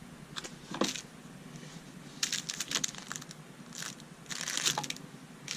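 Small pieces of a miniature Christmas tree kit being handled and fitted together: scattered light clicks and crinkling rustles, with a denser patch of rustling about two seconds in and another near the end.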